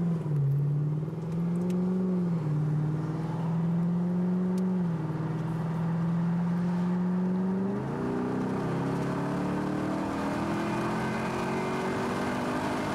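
Lexus IS F's 5.0-litre V8 engine heard from inside the cabin while driving. Its pitch rises at first and then holds mostly steady, jumps up about eight seconds in, and climbs slowly from there.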